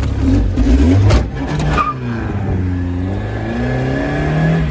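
Car engine revving and accelerating, its pitch rising and falling as the engine speed changes. It is loudest in the first second or so, then settles into steady driving.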